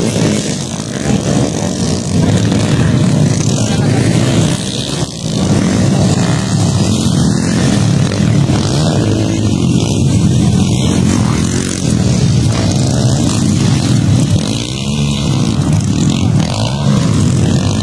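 Several motocross dirt bikes racing on a dirt track, their engines revving and accelerating in a continuous loud drone, with the pitch rising and falling as the riders work the throttle.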